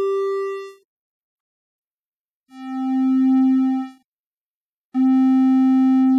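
Sytrus synthesizer tones. A held tone fades out within the first second, and after a pause a lower tone swells in and lasts about a second and a half. About five seconds in, the same lower tone starts again abruptly and holds. The tones are played with the left and right channels offset in phase.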